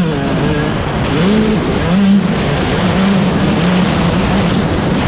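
Dirt bike engines running on a motocross track, their pitch rising and falling in short revs as the riders work the throttle, over a steady background rush of noise.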